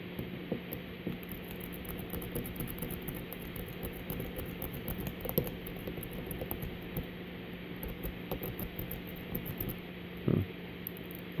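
Worm rake scraped rapidly back and forth across the pin tumblers of a Master Lock Magnum M187 padlock, giving a run of light, irregular metallic clicks; the lock does not open, which the picker puts down to holding the rake too high instead of letting it ride along the bottom of the keyway. A steady low hum runs underneath.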